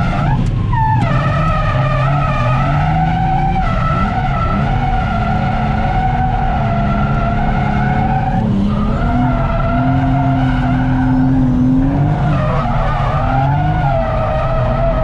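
Turbocharged Toyota Mark II JZX100's straight-six engine held at high revs while drifting, with the tyres squealing. The engine pitch drops and climbs back a few times through the slide, heard from inside the cabin.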